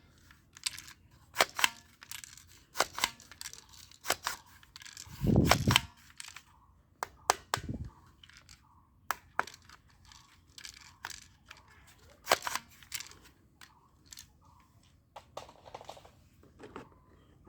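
Plastic toy blowback gun being handled and worked: irregular sharp plastic clicks and clacks, with a dull low thump about five seconds in and a smaller one near eight seconds.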